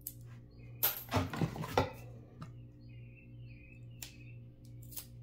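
Pennies clattering and sliding against each other for about a second, then a few single clicks as coins are set down one at a time.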